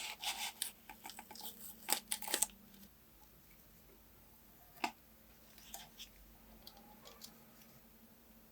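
Hand-tool work on a small diecast model car: rubbing and scraping with sharp clicks for the first two and a half seconds, then one sharp click about five seconds in and a few faint scrapes.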